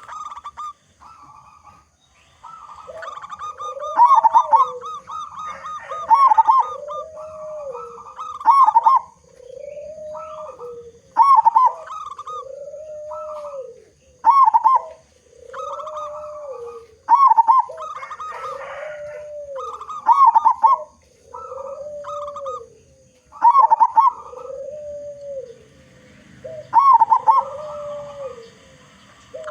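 Zebra dove (perkutut) cooing its song again and again, about eleven phrases in all: each a quick higher double note followed by a longer, lower rolling coo.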